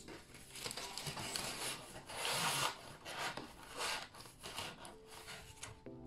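Cardboard book mailers being handled and slid across a paper-covered table: a run of uneven rubbing and scraping swishes, loudest about two seconds in.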